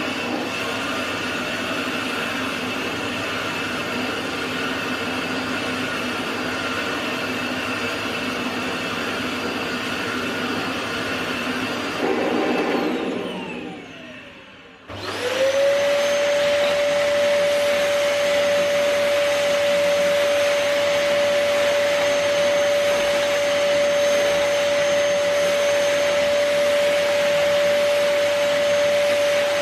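A bagless vacuum cleaner running steadily is switched off about 12 seconds in, its motor whine falling as it spins down. About 15 seconds in a second bagless vacuum cleaner switches on, quickly rising to a steady high-pitched whine that holds to the end. The two machines are a Dyson and a budget Kealive 700W, used in turn on carpet.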